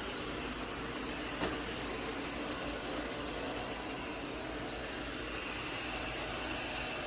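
Robot vacuum running: the steady whirring hiss of its suction fan and brushes, with a single brief click about a second and a half in.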